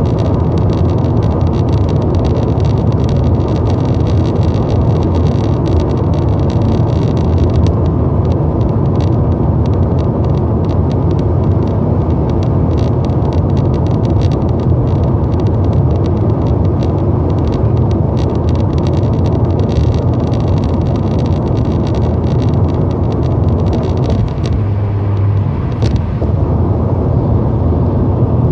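Steady road and drivetrain rumble inside the cabin of a 2014 Lexus IS 250 on the move, with a rapid, irregular clicking rattle from the driver's side of the dashboard near the gauge cluster. The clicking thins out near the end. It is a dash rattle whose cause has not been found.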